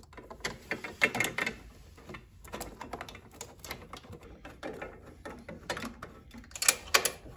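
Irregular light metallic clicks and rattles of a fastener being turned by hand as a bolt and nut go onto the fork wind deflector's mounting, with a louder run of clicks near the end.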